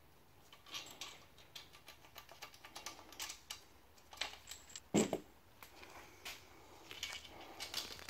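Light, irregular clicks and clinks of small metal engine cam caps being handled and set down one after another, with one louder knock about five seconds in.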